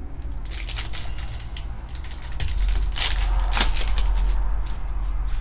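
Trading cards and their packaging being handled: irregular crinkling and rustling, with a low rumble from about halfway.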